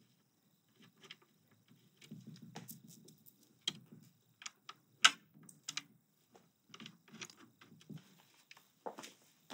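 Quiet scattered clicks, taps and rubbing from handling a Dell OptiPlex 3000 thin client's small case while fitting a screw to it by hand. The sharpest click comes about five seconds in.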